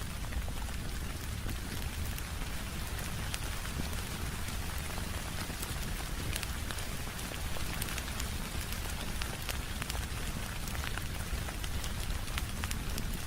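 Steady rain falling, mixed with a fireplace crackling: a constant hiss over a low rumble, dotted with scattered sharp ticks and pops.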